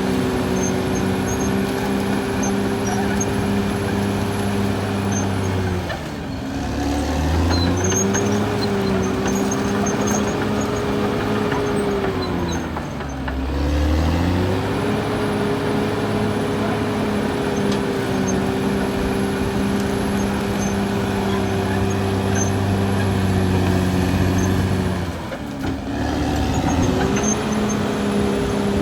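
Caterpillar D6R XL bulldozer's diesel engine running hard at steady revs, dropping in pitch and loudness three times, about six, thirteen and twenty-five seconds in, and each time picking back up to speed.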